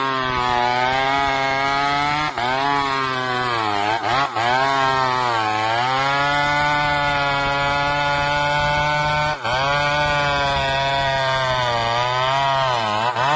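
Chainsaw engine running at high revs, its pitch sagging several times as if bogging under load in a cut, with a few very brief breaks.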